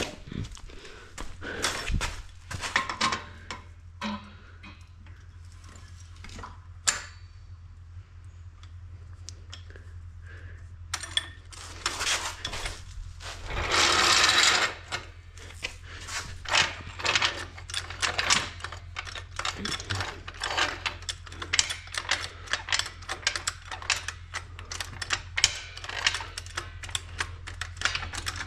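Metal hand tools at work on an ATV's chain area: scattered clinks and knocks, then from about halfway a long run of rapid metallic clicking, with a short scraping rush just before the clicking picks up.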